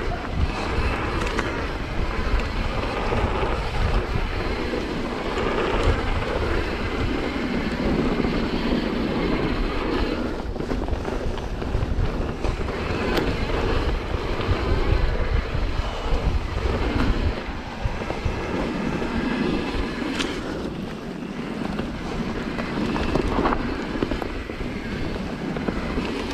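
Mountain bike descending a dirt trail at speed: wind rushing over the camera microphone, with the roll of the tyres on dirt and the rattle of the bike over the ground. Now and then there is a sharp knock or click.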